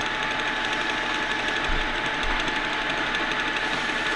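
Geared metal lathe running steadily with a constant whine while a chamfering tool is fed against a bronze bushing held in the collet chuck. A couple of soft low bumps come about two seconds in.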